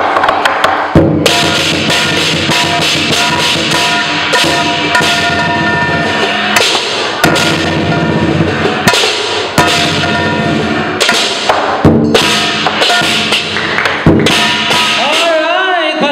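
Chinese lion dance percussion: a big drum beaten rapidly, with clashing cymbals and ringing metal.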